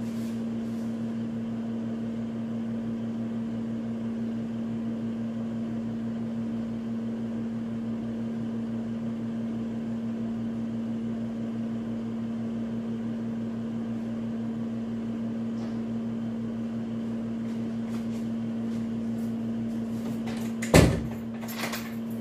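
Steady electrical hum from an appliance running in the room. A loud knock comes near the end, followed by a lighter click.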